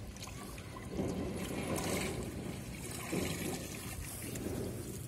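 Water trickling and splashing in irregular surges.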